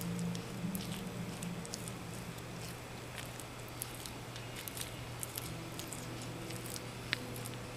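Merauke blue-tongued skink chewing leafy greens such as arugula and bok choy: an irregular run of small wet crunches and clicks from its jaws.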